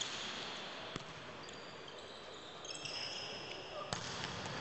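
Volleyball rally: three sharp smacks of the ball being hit, at the start, about a second in and near the end, over the steady noise of the crowd in a large hall.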